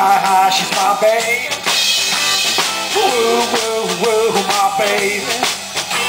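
Live rock-and-roll band playing an instrumental break: electric guitar lead with bending notes over electric bass and a drum kit keeping a steady beat.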